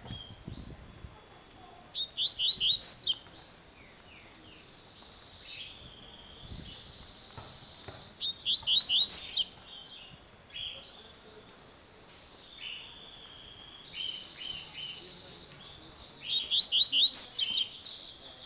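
A caged double-collared seedeater (coleiro) singing: three loud bursts of quick, high, repeated chirps about six or seven seconds apart, with softer notes in between.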